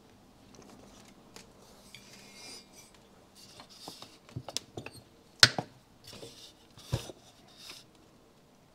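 Clinks, rustles and knocks from handling a 1972 Yamaha AT-2's aluminium two-stroke cylinder and piston on a workbench, with two sharper knocks about five and a half and seven seconds in.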